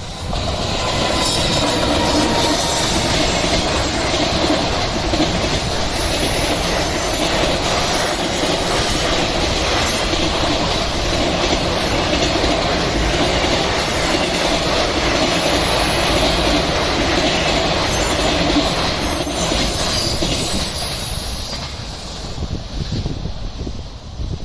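Long container freight train hauled by an EF210 electric locomotive passing close by at speed. The rumble and clatter of its wheels on the rails sets in suddenly, runs steady for about twenty seconds and fades near the end.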